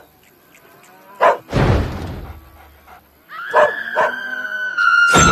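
A dog yelps once, then whines in one long high note that sinks slightly, with two heavy thumps, one early and one at the very end.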